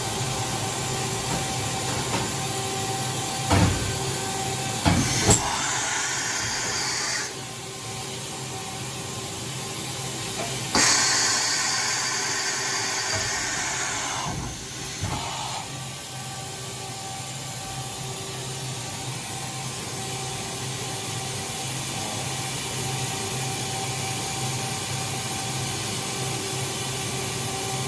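OKK HM-6300S CNC horizontal machining center running with a steady hum. A few short clunks come early on. There are two bursts of high hissing, a short one about five seconds in and a longer one from about eleven to fourteen seconds.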